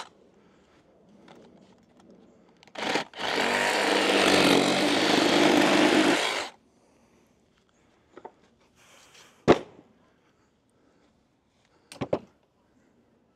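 A power saw starting briefly, then cutting through a lumber deck joist for about three seconds, with a steady motor whine under the cutting noise. A sharp knock follows a few seconds later, then a quick double knock near the end.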